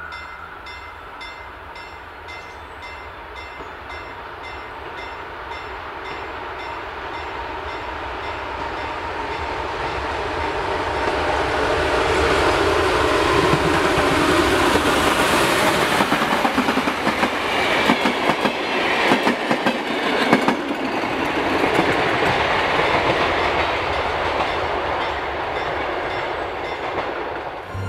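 Finnish Hv3-class steam locomotive No. 995 drawing its passenger train past, the sound building steadily as it approaches. Once the carriages go by, their wheels clatter rapidly over the rail joints.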